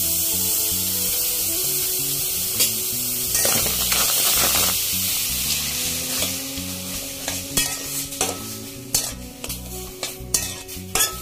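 Boiled, peeled tomatoes sizzling in a hot steel kadai with no oil, the hiss fading after about five seconds. A metal spatula then scrapes and taps against the pan in a string of sharp clicks as the tomatoes are stirred.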